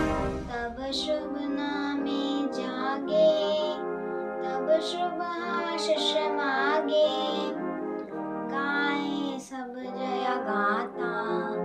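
Music: a song with a sung melody over sustained instrumental notes.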